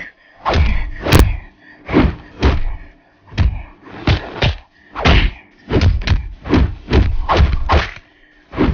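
A rapid barrage of dubbed-in fight sound effects: punches and whacks landing about twice a second, some in quick pairs, each with a short swooshing fall in pitch.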